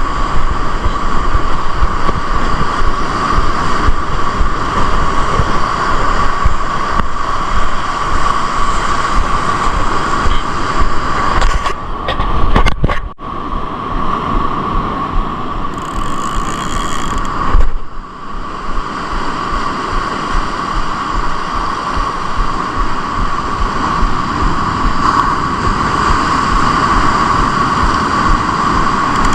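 Wind buffeting the microphone over surf on the beach, a loud rough rumble with a steady whistling tone running through it. It drops away briefly twice, about 13 and 18 seconds in.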